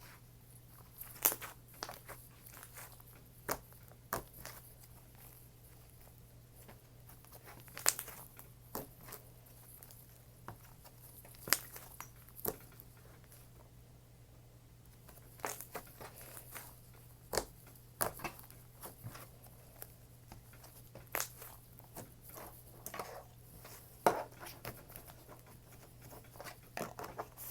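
Slime being squished and poked by hand, giving scattered soft clicks and small pops, a few seconds apart, between quiet stretches.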